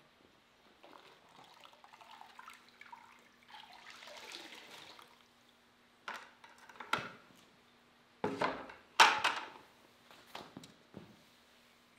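Wet string mop being dunked and wrung in a bucket of water, with sloshing and dripping, then slapped and swished across a bare concrete floor; the sharpest splashes come a little past the middle.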